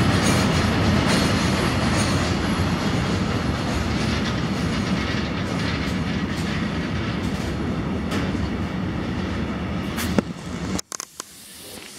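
Freight train of container flat wagons rolling past, a steady rumble of wheels with light clicks over the rail joints. Near the end the sound drops away abruptly, leaving a few scattered clicks.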